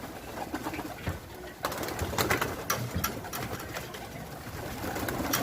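Pigeons in a loft, low cooing with scattered sharp clicks and taps, more of them from about a second and a half in.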